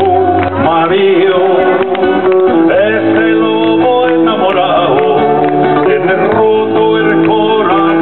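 Live acoustic guitar played with a man singing along, amplified through a PA.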